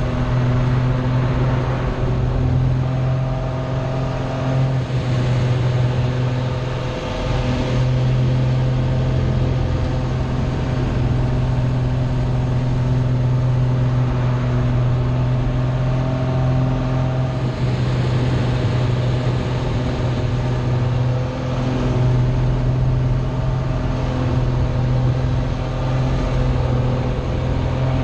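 Aerobatic aircraft's engine droning steadily, heard from inside the cockpit during manoeuvres, with a strong low hum. The level dips briefly twice.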